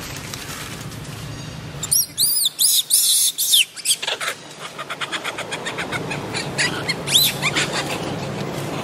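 Young long-tailed macaque screaming: a quick run of short, high, arching squeals about two seconds in, then one more about seven seconds in.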